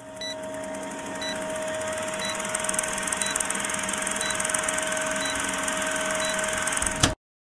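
Old film projector running: a steady mechanical whirr with a rapid flutter and a faint tick about once a second, cutting off abruptly near the end.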